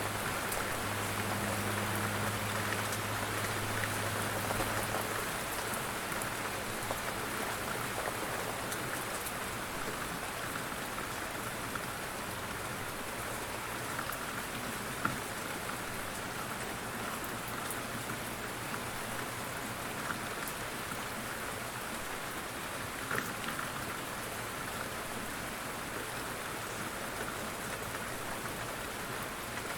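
Steady light rain falling, an even patter of drops with a few sharper drip ticks here and there.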